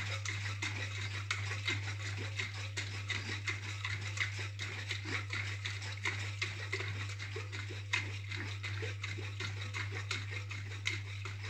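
Flour and water being shaken hard in a lidded jar, a quick, steady rhythm of sloshing knocks, mixing a lump-free flour slurry to thicken soup. A steady low hum runs underneath.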